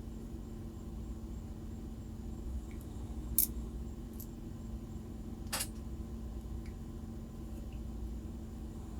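Small metal lock pins and tools being handled, giving a few light clicks with two sharper ticks around the middle, over a steady low hum.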